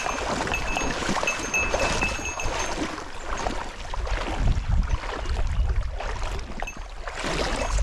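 Shallow river water rushing and splashing around someone wading in it, with a heavier low rumble swelling in the second half.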